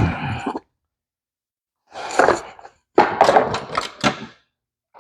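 Boxes and packaging being handled: a thunk as something is set down at the start, then two spells of rustling with light knocks and clatter.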